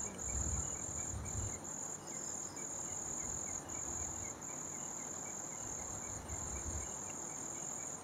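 Night insects chirring: a steady high-pitched trill with brief breaks every second or so. Soft low rumbles come through now and then, most in the first second and a half.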